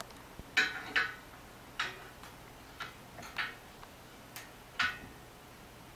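Light metal clicks and taps of an Allen wrench on a pole-banner clamp's set screw as it is fitted and turned to tighten the clamp, about seven irregularly spaced clicks.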